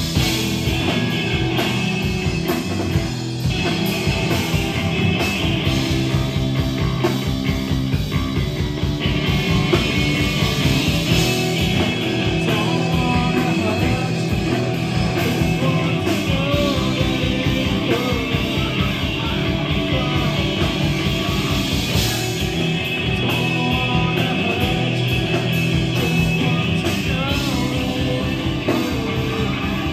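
Alternative rock band playing live at full volume: electric guitar, bass guitar and a drum kit keep a steady beat, with a vocalist singing over it in places.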